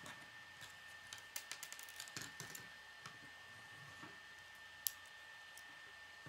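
Plastic K'nex rods and connectors clicking faintly as they are handled and snapped together: a quick flurry of small clicks in the first half and one sharper click about five seconds in.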